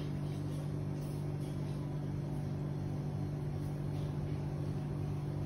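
A steady low mechanical hum at an unchanging pitch, like a motor running at constant speed.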